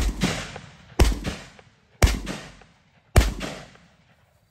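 Four shotgun shots about a second apart, each a sharp blast that fades away over about a second.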